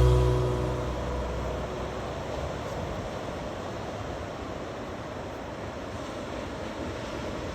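A last music chord dies away in the first second or so, then a steady rush of ocean surf.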